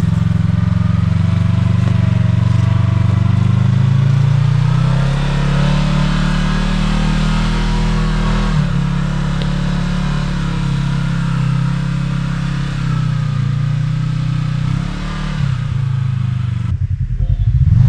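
Kawasaki KRX 1000 side-by-side's parallel-twin engine pulling up a steep, loose dirt climb, its revs rising and falling as it works over the terrain. Near the end a lower, pulsing engine rumble takes over.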